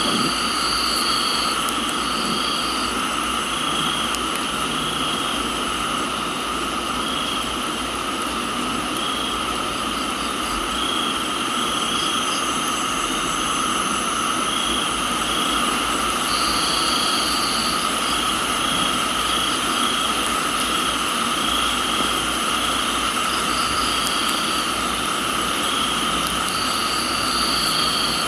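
Crickets and other insects chirring in a steady chorus of several high tones, with trills of about a second coming and going, over an even hiss of rain.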